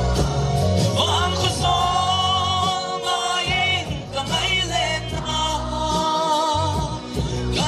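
A man singing into a microphone over amplified backing music, with wavering sung notes above a steady bass line.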